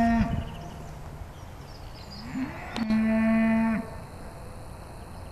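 Cattle mooing: a short moo right at the start, then a longer, steady moo about three seconds in that lasts about a second.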